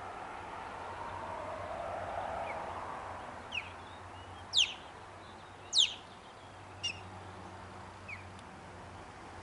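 Young osprey calling: about six short, sharp whistled calls, each sweeping upward in pitch, the two loudest in the middle of the run. A faint rushing noise fades out over the first few seconds.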